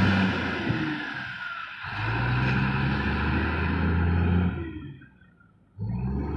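Heavy diesel machinery engine running with a steady low hum. It drops out suddenly about five seconds in and comes back just before the end.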